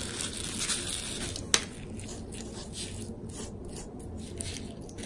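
Quiet handling sounds: sprinkles shaken from a small plastic bag onto slime, a single sharp click about a second and a half in, then soft rubbing as a fingertip presses the sprinkles into the slime.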